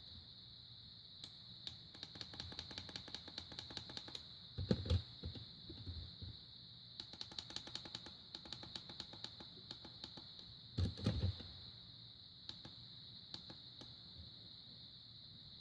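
Rapid small plastic button clicks from a LEGO minifigure alarm clock being pressed over and over to set its time back an hour, in two long runs, with a couple of knocks from handling the clock about five and eleven seconds in.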